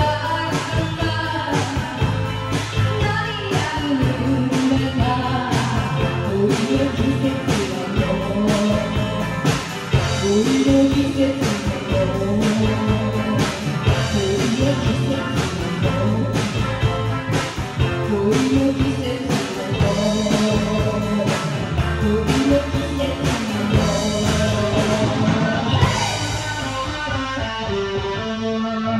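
A live rock band: a woman singing into a microphone over electric guitars, keyboard and a drum kit keeping a steady beat. Over the last few seconds the band settles on a held final chord, and the song stops at the very end.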